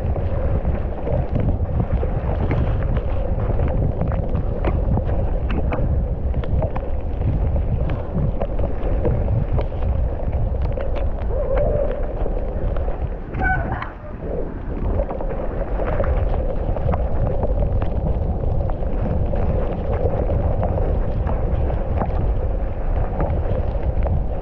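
Wind rushing over a GoPro Hero9's microphone while a mountain bike rattles down a dry, rough trail: a steady low rumble broken by many small knocks, easing briefly about 14 seconds in.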